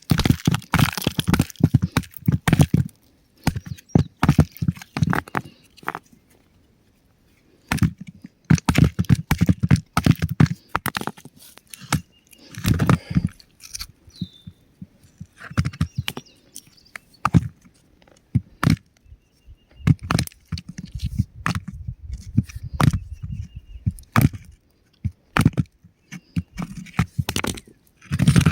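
Rock crumbling and breaking apart in a long run of sharp cracks and gritty crunches, with a short pause a few seconds in.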